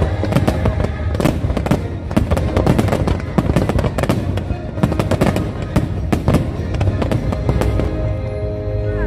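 A dense fireworks barrage: rapid, overlapping bangs and crackles from aerial shells, several a second without a break, over the show's music soundtrack, which stands out more near the end.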